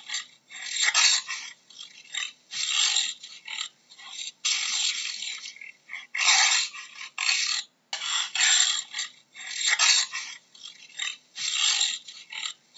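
Jaguar calling: a run of short, hoarse, breathy calls, each lasting up to about a second, with brief irregular gaps between them.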